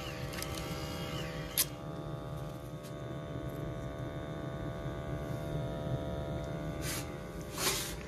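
Steady hum and low rumble of a gas-fired boiler running, with a sharp click about a second and a half in. Two brief rustling noises near the end as the combustion analyser's hose is handled.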